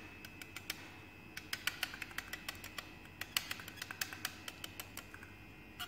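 Quick, irregular light clicks and ticks from pipetting a dilution into a glass petri dish, thickest in the middle, over a faint steady high whine.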